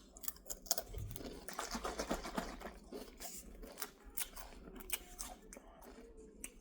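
A person chewing crunchy kettle-cooked potato chips close to the mic. Irregular crackles run through it, coming thickest about two seconds in.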